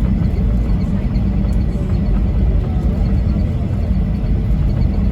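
Steady low rumble inside the cabin of a Boeing 737-800 on the ground, its CFM56 jet engines running at idle.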